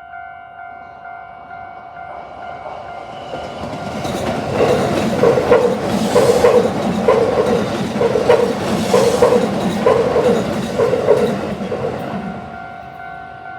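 Japanese level-crossing warning bell ringing in a fast, steady repeating ding while an electric train passes over the crossing. The train builds up over the first few seconds, runs loud through the middle with a regular clack of wheels over the rail joints, and fades near the end, leaving the bell ringing on its own.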